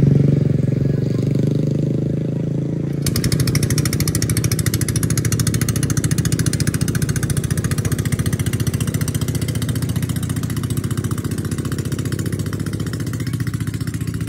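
A small vehicle engine running steadily. About three seconds in, the low hum changes abruptly to a fast, even pulsing that carries on.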